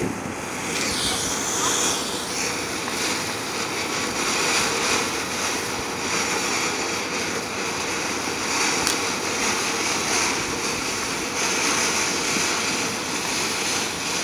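Ground fountain firework spraying sparks: a steady rushing hiss that swells and eases at times.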